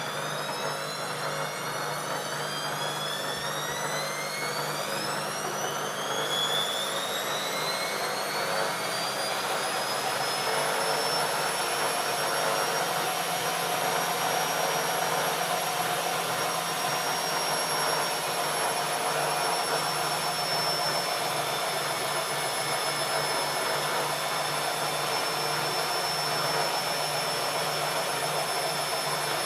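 ELIN A 100 E washing machine spinning up: a motor whine rises in pitch over roughly the first ten seconds, then holds steady at spin speed over a constant rushing noise.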